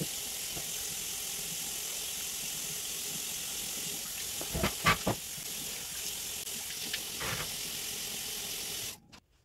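Bathroom sink tap running steadily while a face is washed, with a few louder splashes of water about halfway through. The water shuts off suddenly near the end.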